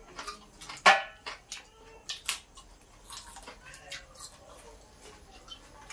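Crispy fried chicken feet being bitten, chewed and broken apart by hand: a run of sharp crunches and cracks, the loudest about a second in.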